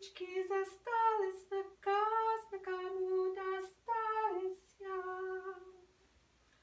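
A woman singing a short tune in a high voice, about six held phrases in a row, stopping about six seconds in.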